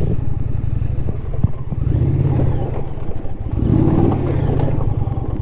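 Indian Challenger's V-twin engine running under load on a rough dirt track, its note swelling and rising as the throttle opens about two seconds in and again around four seconds. There is a single sharp knock about one and a half seconds in.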